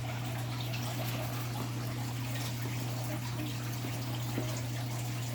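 A steady low hum with faint, light handling and rustling noises over it.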